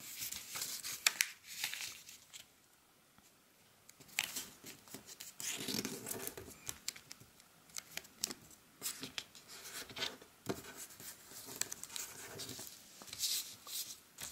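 A sheet of origami paper being folded and creased by hand: crinkling, sliding and sharp little clicks as fingers press the folds flat, with a quiet stretch about two seconds in.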